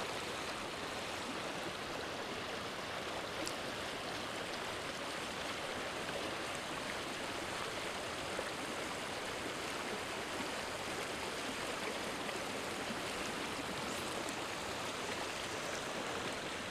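Creek water flowing past, a steady even rush.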